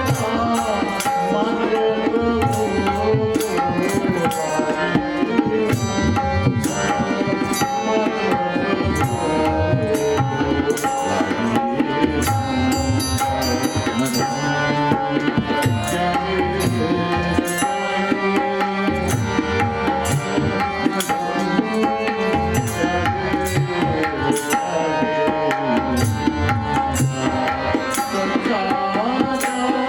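Devotional bhajan music with a steady drum accompaniment under a bending melodic line, running without a break.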